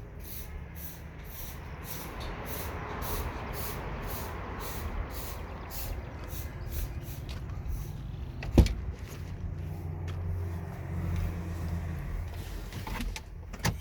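A car engine idling steadily, with one sharp click a little over halfway through.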